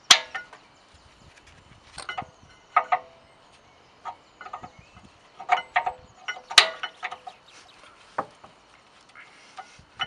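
New rear brake pads being pushed and seated into a car's rear brake caliper carrier: a series of sharp metal-on-metal clicks and clinks, a few with a brief ring, spaced out with quiet gaps between them.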